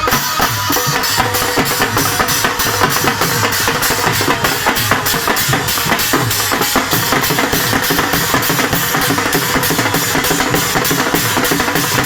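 Dance music with a fast, steady drum beat.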